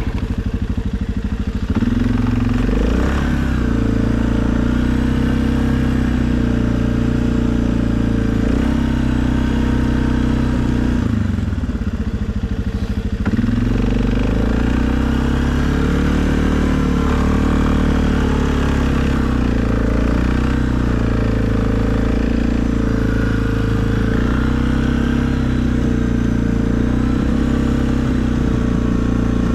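2020 Suzuki KingQuad ATV's single-cylinder engine running while plowing snow. Its pitch rises about two seconds in, drops off briefly around the middle, then picks back up and holds steady.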